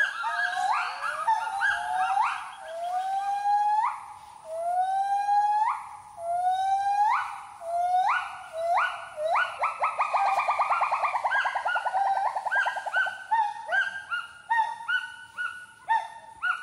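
Gibbon song: a series of loud whooping notes, each rising in pitch, about one a second, that breaks into a rapid trill about ten seconds in, then goes on as shorter, quicker hoots.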